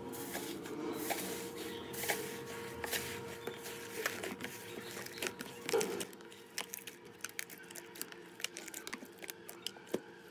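Fluffy green slime pressed and kneaded by hand in a plastic tub, giving soft crackling and many small sticky clicks and pops. The clicks grow sharper and more frequent about halfway through as the slime turns glossy.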